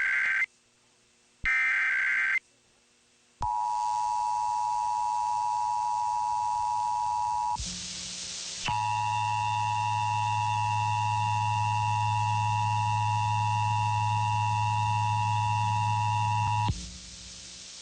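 Emergency Alert System SAME header: harsh warbling data bursts about a second long, one at the start and another about a second and a half in. These are followed from about three and a half seconds by the EAS two-tone attention signal, a steady dual tone. It breaks off for about a second near the middle, resumes over a low hum, and cuts off about a second before the end.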